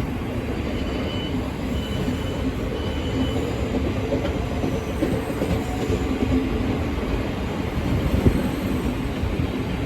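A Thameslink Class 700 electric train runs in along the platform with a steady rumble of wheels and traction hum. Three short high beeps, about a second apart, sound in the first few seconds.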